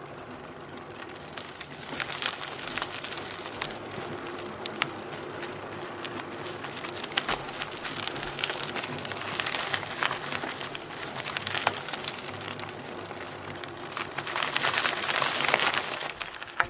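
Bicycle riding over an unpaved dirt road: tyres crunching and crackling over grit, with scattered clicks and rattles, growing louder near the end as it passes closest.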